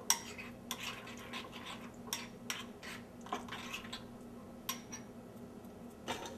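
Metal spoon stirring a thick mustard paste in a ceramic bowl, clinking and scraping against the bowl at irregular intervals, the sharpest clink just after the start.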